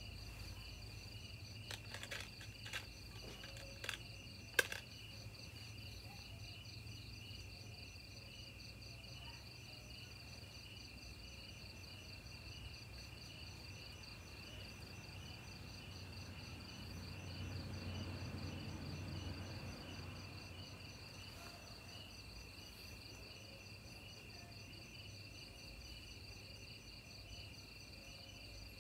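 Crickets chirping steadily in a fast, pulsing trill. A few sharp clicks come in the first five seconds, the last one the loudest, and a low rumble swells and fades about midway.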